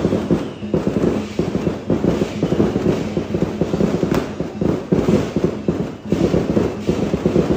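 Dense, rapid percussion from a Chinese opera band: fast drum beats with gongs and cymbals, loud and continuous.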